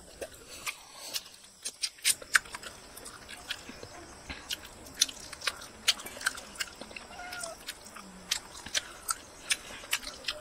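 Close-up eating sounds: wet chewing and lip-smacking on a cooked chicken head, a run of sharp, irregular mouth clicks.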